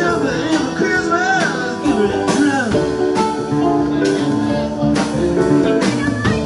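Live band playing, with electric guitars, bass guitar and a drum kit keeping a steady beat.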